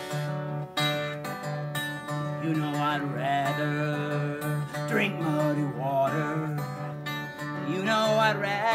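Acoustic guitar strummed in a steady blues rhythm over a repeating, thumping bass note. Sliding melody notes rise and fall above it in the middle and again near the end.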